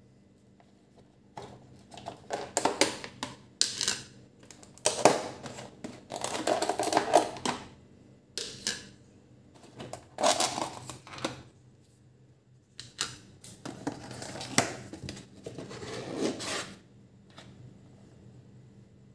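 Clear plastic takeaway salad-bowl lids being pulled off and set down, and paper food-box flaps being opened. It comes as a series of rustling, clattering handling bursts with short pauses between them.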